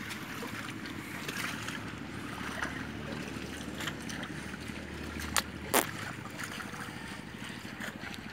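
Water sloshing and splashing in a flooded rice paddy as a farmer works the mud at its edge with a hoe, with wind noise on the microphone. Two sharp knocks come a little past the middle.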